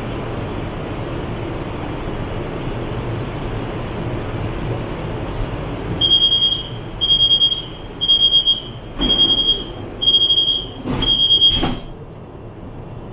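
Door-closing warning on a CSR Zhuzhou "AMY" light rail train: six high beeps about one a second start about six seconds in, and the doors slide shut with a few knocks near the end. Before the beeps, the stopped train gives a steady hum.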